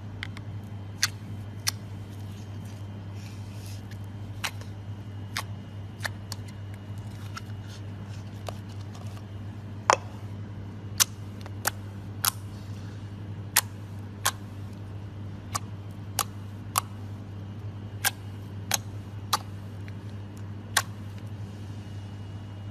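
Slime being handled and poked, giving irregular sharp pops and clicks about once a second, the loudest near the middle, over a steady low hum.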